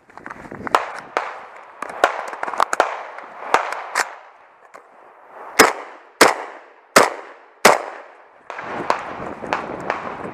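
A rifle fired four times in fairly quick succession, sharp close cracks with a short echoing tail. Before and after the shots, the shooter's footsteps and legs brush through low bog vegetation, with scattered knocks of gear.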